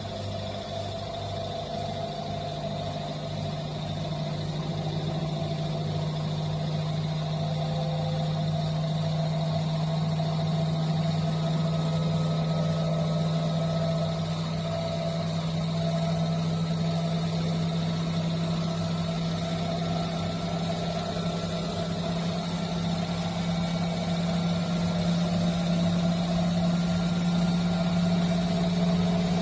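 Washing machine running: a steady motor hum with a low drone that grows slowly louder.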